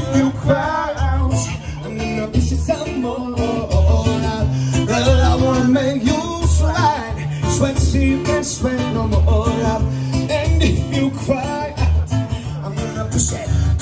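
Music with singing and guitar over a steady, unhurried bass beat.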